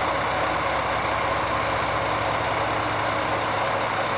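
Diesel railcar engine idling steadily, a low even hum with a few steady tones.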